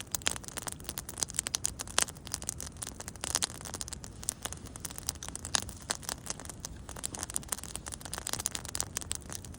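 Campfire crackling: burning wood giving off frequent irregular sharp pops and snaps, one of the strongest about two seconds in.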